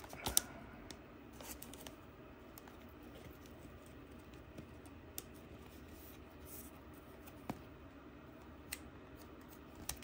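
Faint handling sounds of a trading card being slid into a clear plastic sleeve: a sharp tick about a third of a second in, then a few light ticks and rustles.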